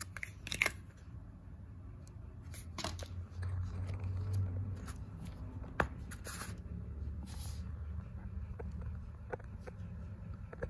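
Handling noise from a plastic action figure and a cardboard collector card: scattered rustles, light clicks and taps as the card is put aside and the figure is turned over and set down.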